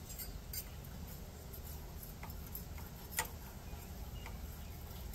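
A few faint metallic clicks and ticks of a steel feeler gauge blade sliding between the rocker arm and the exhaust valve stem of a Kohler SV725 engine, checking the valve clearance.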